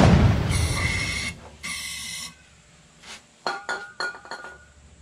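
Aerosol can of brake parts cleaner sprayed in two short hissing bursts into a small engine's intake, with a faint whistle to the spray. It opens with a loud hit that fades over about a second, and a few light metallic clinks follow near the end.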